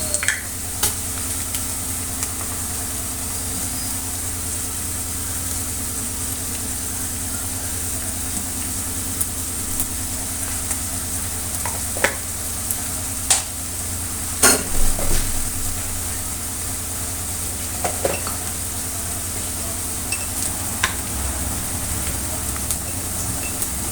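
Food sizzling in a frying pan, with a steady low hum underneath. A utensil gives a few short scrapes and clicks against the pan about halfway through and again a few seconds later.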